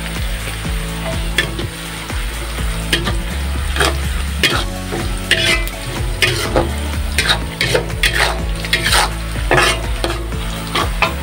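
Spatula scraping and stirring sliced red chilies and shallots as they sizzle in oil in a wok, with repeated short scrapes against the pan over a steady frying hiss.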